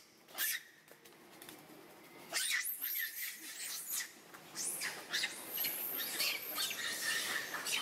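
Long-tailed macaques screeching: a run of high-pitched, arching squeals that starts about two and a half seconds in and keeps coming in quick succession.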